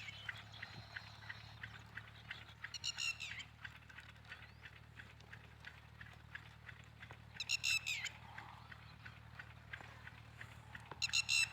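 Short, high-pitched animal calls, each about half a second long, coming four times several seconds apart over a steady low hum and faint rapid ticking.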